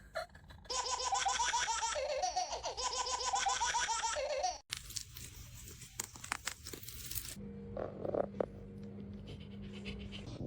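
A baby laughing in a pulsing run of giggles for about four seconds that cuts off abruptly, followed by quieter clicks and a low steady hum.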